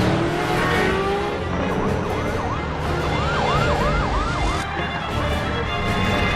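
A siren, from about a second and a half in, going in quick rising-and-falling wails about three times a second over a busy noisy background of vehicle sound.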